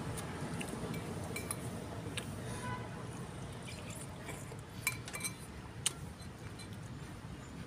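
Metal spoon clinking and scraping against a bowl of bakso while eating: scattered light clinks, with two sharper ones about a second apart past the middle, over a steady low background rumble.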